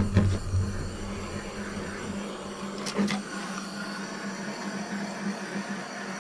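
Handheld propane torch burning with a steady hissing flame as it heats a plastic water line to soften it for pushing over a barb fitting. A deeper rumble fades about two seconds in, and there is one short tick about three seconds in.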